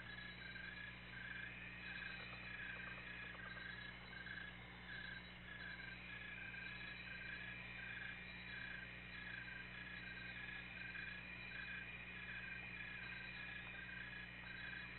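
Faint night chorus of calling animals: a regular chirp repeating a little under twice a second, joined about six seconds in by a steady high trill, over a low steady hum.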